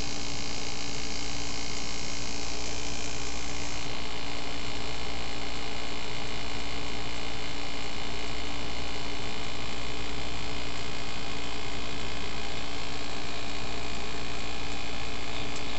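Steady electrical hum with hiss, several steady tones held level with no change or events.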